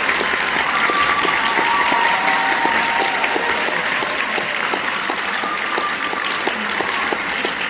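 A large audience applauding steadily, with a few voices calling out among the clapping; it eases off slightly near the end.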